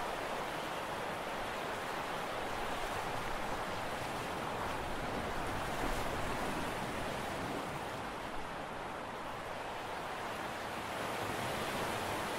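Steady noise of sea waves washing, mixed with wind on the microphone.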